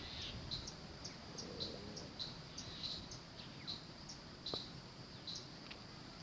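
Cricket chirping faintly at an even pace, a little more than once a second.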